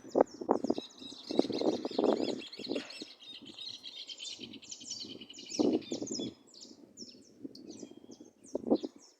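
Birds chirping in quick, dense twitters through most of the stretch, thickest in the first half. Louder low thumps and rustling come and go over it, about a second in, near six seconds and near the end.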